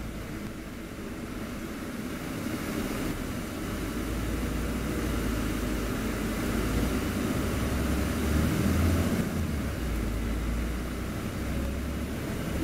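VDL DB300 double-decker bus heard from the upper deck: engine and road noise as it drives, growing louder over the first several seconds and easing off about ten seconds in.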